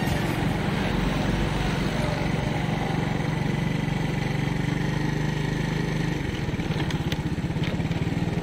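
Motorcycle engine running steadily while riding along a road. From about six seconds in the engine note drops into a slower, more distinct pulsing.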